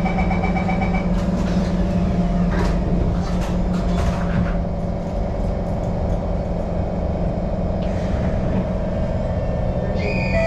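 Singapore MRT train running in the tunnel: a steady low hum from the traction motors and wheels, with a high motor whine in the first second and a few short bursts of hiss in the first half. Near the end a set of steady higher tones comes in.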